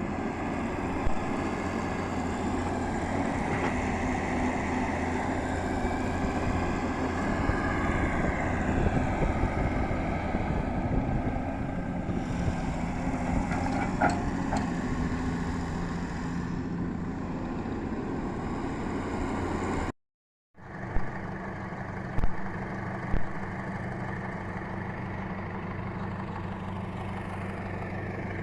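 Heavy machinery engine running steadily, with a few sharp knocks. It drops out for half a second about 20 seconds in, then a steady engine sound carries on.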